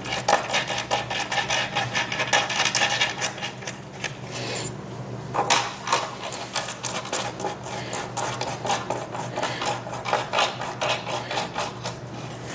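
Screws being put into a table frame and threaded in by hand, a quick run of small metal clicks and scrapes.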